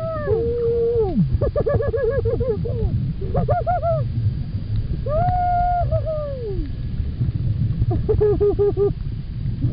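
Humpback whale song heard underwater: moaning notes with overtones that bend and fall away, runs of quick repeated notes, and one long held note about midway, over a low steady wash of water noise.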